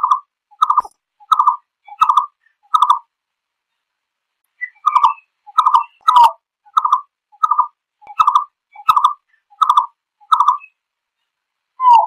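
Green-billed malkoha calling to its flock: a series of short, evenly spaced notes, about one and a half a second. The notes come in two runs with a pause of about a second and a half between them, and start again near the end.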